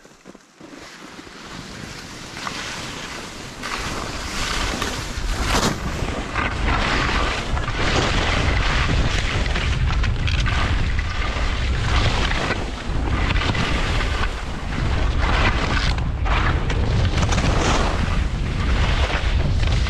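Wind buffeting the microphone with a heavy low rumble as the skier descends. Over it, skis hiss and scrape across the snow in repeated swells with each turn. The sound builds over the first few seconds as speed picks up.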